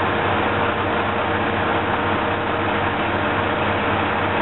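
Diesel railcar engine idling, a steady low hum with a hiss that holds even throughout.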